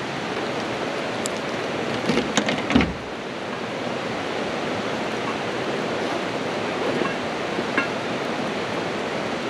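Steady rushing of running water, with a few brief knocks and clatters about two to three seconds in.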